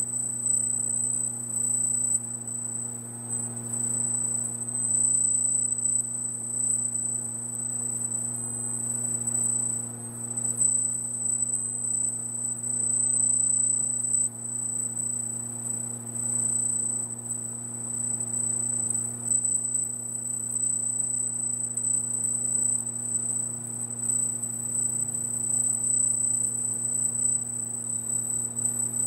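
Laser marking machine engraving lettering into a metal panel: a steady high-pitched whine over a low electrical hum.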